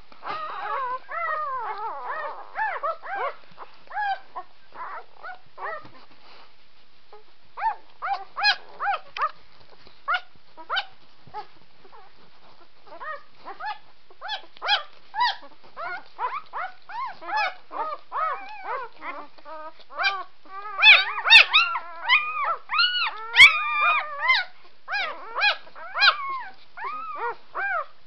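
Three-day-old puppies squeaking and whimpering in many short, high calls as they jostle for a teat while nursing. The calls come in bursts with short lulls and are busiest and loudest about three-quarters of the way through, where two sharp clicks also sound.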